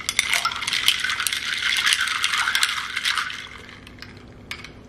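A spoon stirring coffee in a glass, clinking and rattling fast against the glass for about three seconds before it stops.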